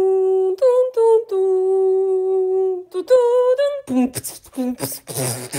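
A short unaccompanied sung jingle: one voice holds a long steady note, sings a few quick notes, then holds another long note. Choppier voice sounds follow about four seconds in.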